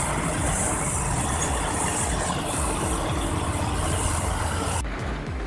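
Heavy truck engine running steadily under load, a low rumble with a lot of hiss; near the end the hiss cuts off suddenly, leaving a quieter engine rumble.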